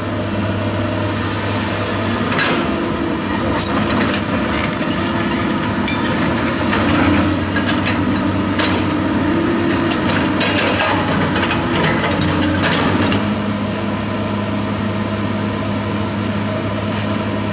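Komatsu PC200 hydraulic excavator's diesel engine running steadily, with a scatter of knocks and clanks over the middle stretch. The engine note shifts near the end.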